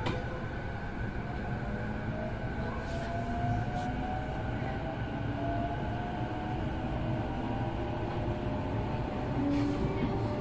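Sotetsu 12000 series electric train heard from inside a motor car: a steady rumble of wheels on rail with the whine of its Mitsubishi IGBT-VVVF inverter and traction motors slowly rising in pitch, as the train picks up speed. A second, lower whine joins near the end.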